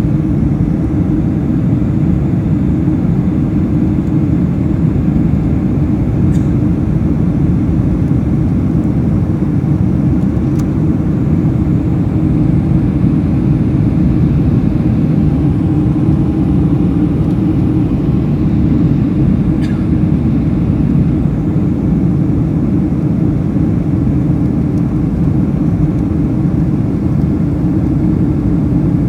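Steady low rumble of a Boeing 747-400 with Pratt & Whitney PW4056 engines, heard from inside the cabin, with a few faint clicks.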